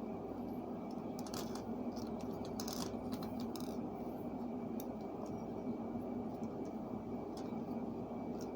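Light clicks and ticks of small hard craft pieces being handled, bunched between about one and four seconds in and sparser after, over a steady background hum.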